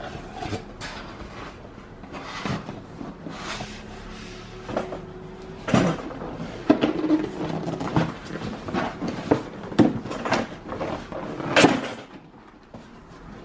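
Cardboard shipping box being handled: flaps scraping and rustling as a rigid gift box is worked loose and lifted out, with irregular knocks and scrapes, loudest about six seconds in and again near the end.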